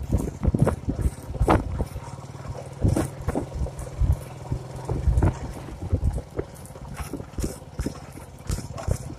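Motorcycle engine running steadily as the bike is ridden over a rough dirt track, with many irregular thumps and rattles cutting across it.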